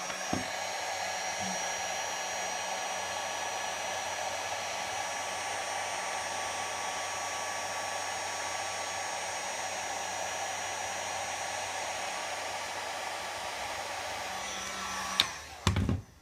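A 1500-watt dual-temperature heat gun blows hot air steadily at a steady pitch onto the edge of a Kydex sheath to soften it for reshaping. About a second before the end it switches off with a click and runs down, followed by a couple of knocks as it is handled.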